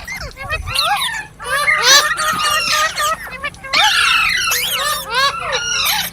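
Green parrots chirping and squawking in rapid, overlapping calls that sweep up and down in pitch.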